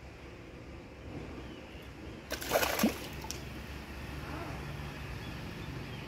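A hooked fish thrashing at the water's surface: one short burst of splashing a little over two seconds in, with a smaller splash just after.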